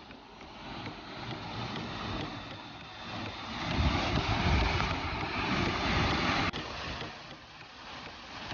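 Rushing water with wind buffeting the microphone. The rumble swells up in the middle and drops off abruptly about two-thirds of the way in.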